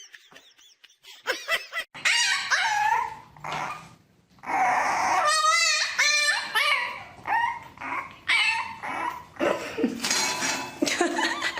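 A dog whining and yipping in a series of short, pitch-gliding calls, with one longer wavering call about halfway through.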